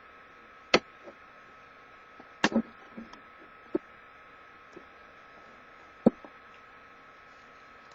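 Several separate light knocks and taps from objects being handled close to the microphone, one of them a quick double, over a steady faint electrical hum.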